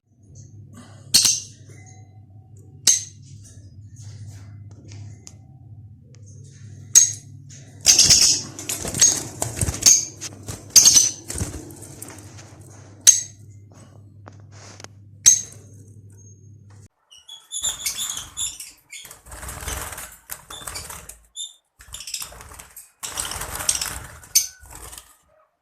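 Parrots giving short, sharp, high-pitched squawks every second or two over a steady low hum that stops about two-thirds of the way through. Bursts of rustling noise follow near the end.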